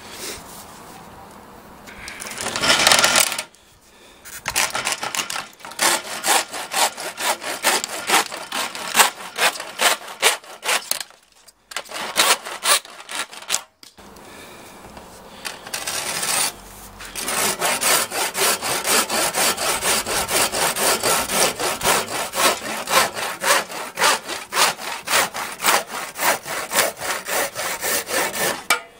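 A 22-inch Bahco 244P XT hard-point hand saw cutting through uPVC soffit board and then plastic pipe, in quick, even back-and-forth strokes of about two a second. The sawing stops briefly partway through.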